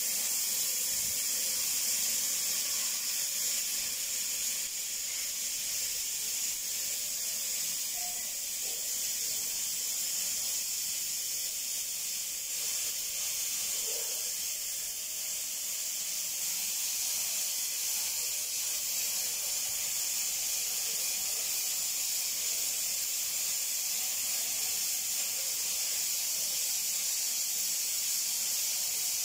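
Oxy-acetylene cutting torch hissing steadily as its oxygen jet cuts through a steel pipe.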